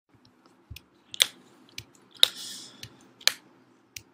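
Sharp clicks and knocks close to the microphone, three loud ones about a second apart with fainter ones between, and a short rustle after the second.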